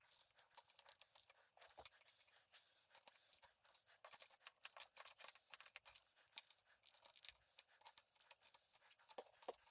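Faint, irregular light clicks and scratching.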